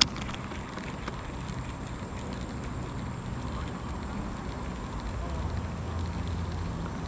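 A single sharp click as the baitcasting reel is engaged just after the cast, then a low steady hum that grows a little stronger after about five seconds.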